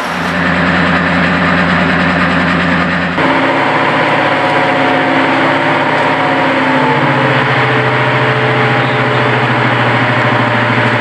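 Class 55 Deltic locomotive's Napier Deltic two-stroke opposed-piston diesel engine running at idle on one of its two engines, a steady low drone. The sound changes abruptly about three seconds in to a similar idling note, which rises a little about seven seconds in.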